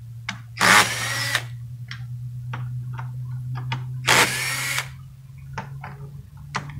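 Cordless drill-driver backing screws out of a metal satellite dish turret housing: two short runs of under a second each, the motor whine rising as it spins up, with small clicks of the bit and screws in between. A steady low hum runs underneath.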